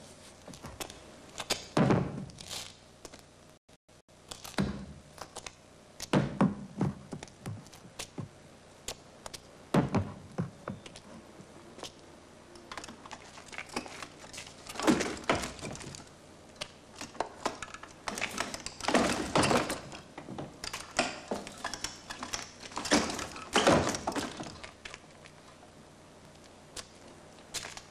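Irregular hollow thunks and knocks of store mannequins being handled and bumped against one another, with several louder clusters of knocks spread through the stretch.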